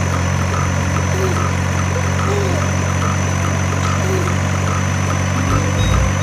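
A steady, even engine drone, like a vehicle idling.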